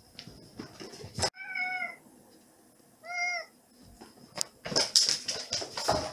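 Domestic cat meowing twice, two short arching calls about a second and a half apart. Around the meows come scuffling, thumps and quick patter of a cat jumping down from a bed and running on a wooden floor, with the loudest knocks near the end.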